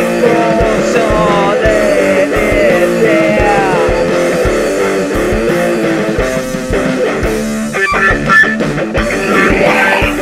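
Loud rock music with electric guitar, bass and a steady drum beat.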